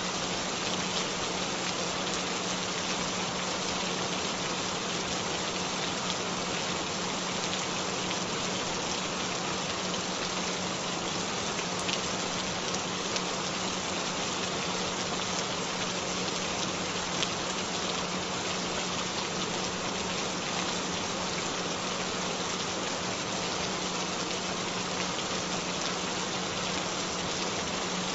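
Steady rain falling, an even hiss of many drops, with a continuous low tone held underneath it: the headphone 'frequency' track, a binaural-beat style tone.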